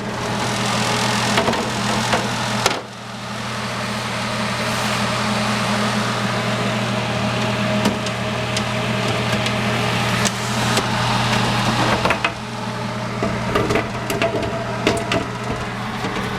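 Food dehydrator's fan running with a steady hum, with a few light clicks and knocks of handling in the second half.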